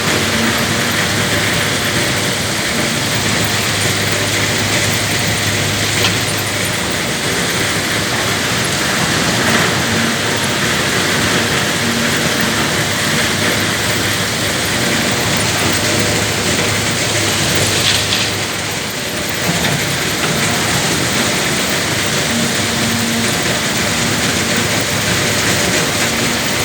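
Heavy diesel machinery working: the engine of a Cat 320 GC excavator running steadily, with a low engine tone that swells and fades every several seconds. A brief higher-pitched sound comes about two-thirds of the way through.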